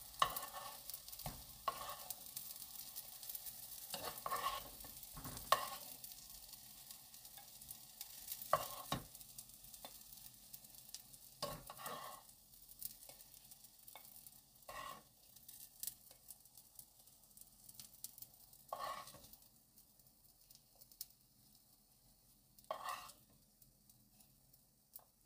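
Shiitake mushroom patties sizzling in oil in a frying pan, with a short scrape or clink of a utensil against the pan every few seconds as they are lifted out. The heat under the pan is off, and the sizzle fades away over the second half.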